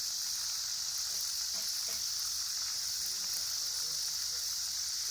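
A steady, high-pitched hiss that holds at one level throughout, with faint distant voices underneath.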